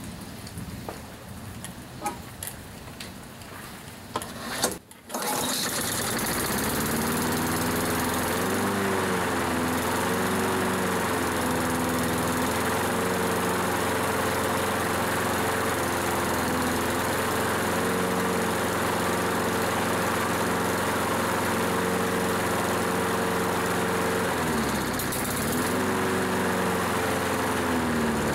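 Honda lawn mower's small four-stroke engine starting about five seconds in after a few seconds of clicking and handling sounds, then running steadily on its test run after servicing. Its pitch dips and recovers briefly a few times.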